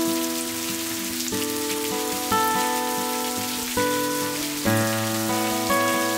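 Steady summer monsoon rain falling and streaming off tiled roof eaves, under soft instrumental music: held chords, a new one struck every second or so.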